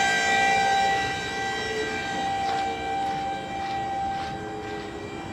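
Electric-hydraulic pump of a pickup dump insert whining steadily as it works the bed, with a lower tone that slowly drops in pitch and a few faint ticks; the whine gets gradually quieter.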